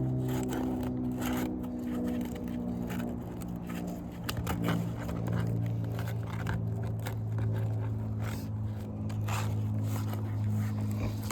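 A steel nail puller is scraping and clicking under asphalt architectural shingles, with repeated short scrapes and taps as it works the roofing nails loose. A steady low hum runs underneath and drops slightly in pitch about four seconds in.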